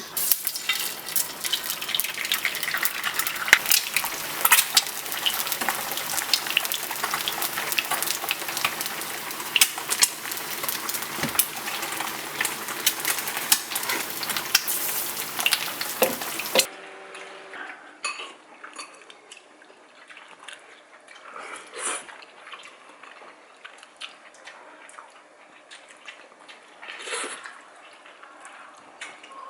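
Food frying and sizzling in a pan, with many clicks and scrapes of a utensil stirring it. About two thirds of the way through, this cuts off abruptly to quieter, scattered clinks of utensils on dishes.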